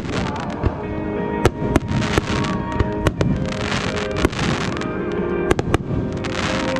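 Aerial firework shells bursting in a rapid, irregular string of sharp bangs, some followed by brief crackling, with music playing underneath.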